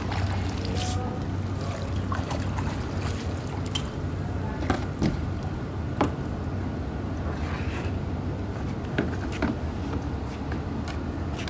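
Water splashing and trickling from a kayak paddle as a plastic sit-on-top kayak is paddled and brought alongside a wooden jetty, with a few short sharp knocks and a steady low hum underneath.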